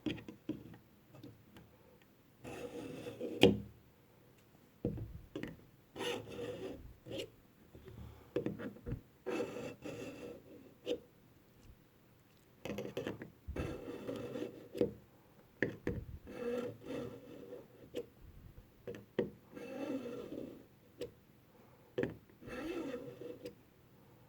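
Swiss Army knife blade pulled again and again through the slot of a pull-through knife sharpener: a short rasping scrape with each stroke, with brief pauses between strokes and one sharper click a few seconds in.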